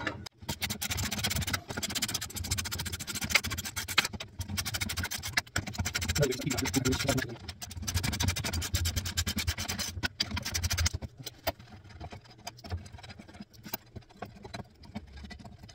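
Hand ratchet with a socket clicking rapidly as it backs out the 15 mm bolts holding an underbody support bar. The clicking thins to scattered clicks and scrapes over the last few seconds.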